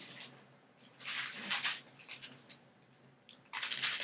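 Packaging rustling and crinkling as gifts are handled, in two bursts: one about a second in and one near the end, with a few light clicks between.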